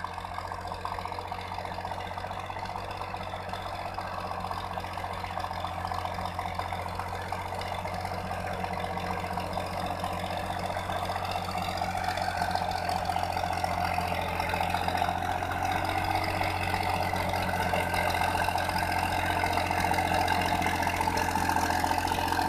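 Fiat 480 tractor's three-cylinder diesel engine running steadily under load as it pulls a ridger through dry soil, growing louder as it draws closer.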